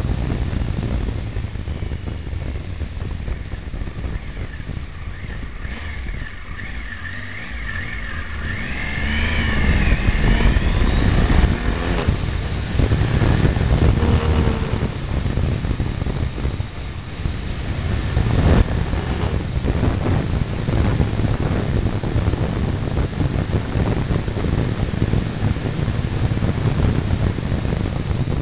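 Triumph Tiger 955i motorcycle's three-cylinder engine running on the move, with wind on the mirror-mounted microphone. About a third of the way in a rising whine comes in and the engine grows louder as the bike speeds up, with two sharp clicks later on.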